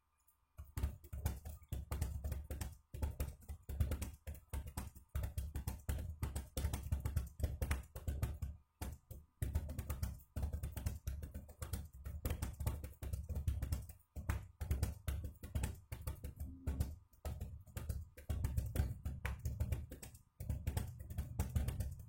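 Fast ten-finger touch-typing on a computer keyboard: a rapid, continuous run of key clicks, starting about a second in and broken only by a few short pauses.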